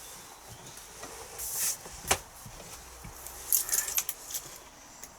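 Items being handled and put away: a sharp knock about two seconds in, with clicks and short bursts of rattling around it.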